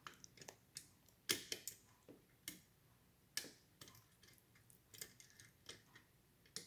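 Faint, irregular metallic clicks and ticks of a lock pick and tension wrench working the levers and springs inside an all-brass lever padlock, with the loudest click a little over a second in.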